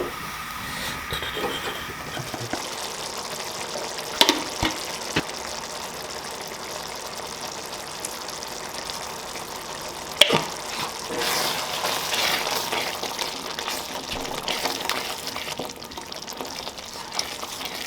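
Food sizzling in a cooking pan, with sharp knocks of a utensil about four and ten seconds in. The sizzling grows louder for a few seconds after the second knock.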